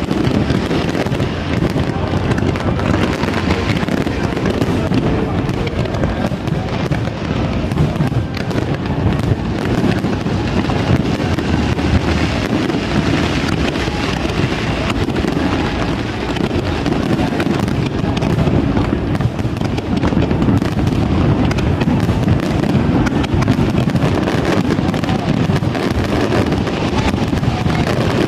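New Year's fireworks display going off in a dense, continuous barrage of bangs and crackles, with no break.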